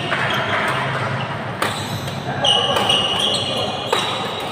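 Two sharp knocks about two seconds apart, with a high squeak between them and voices in the background.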